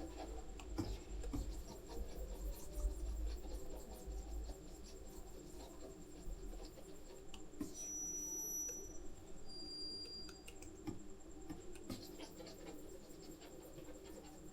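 Stylus nib scratching and tapping on the surface of a Huion graphics tablet in many short, faint drawing strokes, over a thin steady high whine.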